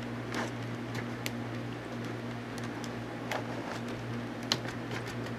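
Laptop hard drive being worked out of its drive bay by hand: a few scattered small clicks and light scrapes over a steady low hum.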